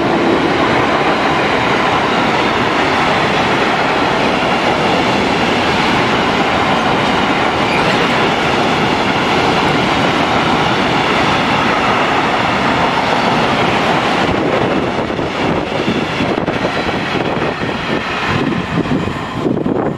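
Long freight train of tank wagons passing close by, pulled by a BB 26000 electric locomotive: a steady rumble and clatter of wheels on the rails. Near the end it breaks up into separate clacks and thins out as the last wagons go by.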